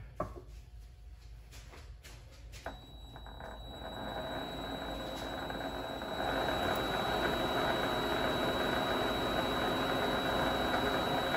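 Vevor MX400 mini lathe switched on with a click about three seconds in. Its motor speeds up over a few seconds, then runs steadily with a thin high-pitched whine.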